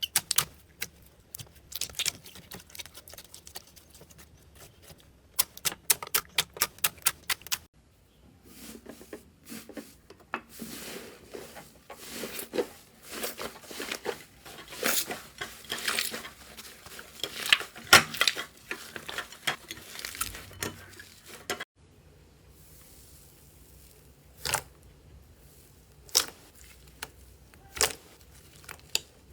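Slime being handled and pressed: a quick run of sharp clicks and pops, then a longer stretch of denser squishing and crackling, then single pops every second or two near the end.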